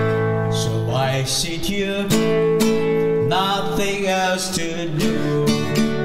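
Acoustic guitar strummed in a steady rhythm, about two strums a second, with chords ringing between the strokes.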